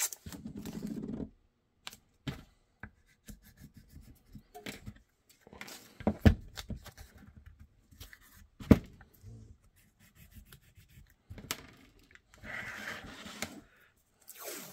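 Hands pressing and rubbing blue masking tape down over a taped pistol and weapon light, with scratchy rubs and small clicks as the tape is smoothed, part of prepping the gun for holster forming. Two sharp knocks, the loudest sounds, come about 6 and 9 seconds in as the taped gun is handled on the cutting mat, and near the end a strip of tape is pulled off the roll.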